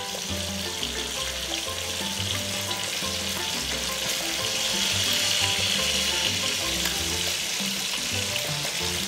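Malunggay leaves, fried fish and coconut milk sizzling steadily in an aluminium wok as the coconut milk cooks down toward dry, over background music.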